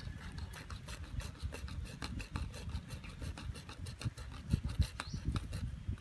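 A hand-held hacksaw blade sawing through a PVC water pipe, rasping in short, rapid back-and-forth strokes.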